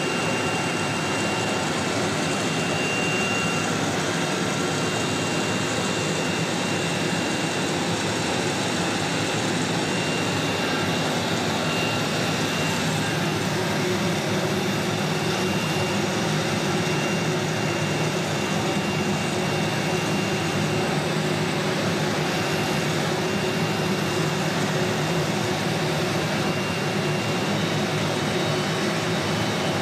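Steady running noise of CNC router machinery: an even mechanical hum with a faint high whine held throughout.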